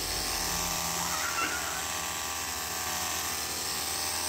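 Cordless battery-powered high-pressure washer running, its electric pump motor humming steadily under the hiss of a wide fan spray of water hitting the scooter's bodywork.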